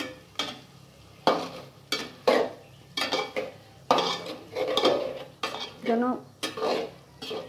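A spoon scraping and stirring beef pieces through spiced oil in an aluminium pot, in irregular strokes about once a second, with light sizzling underneath. The meat is being fried in the masala to brown it before water goes in.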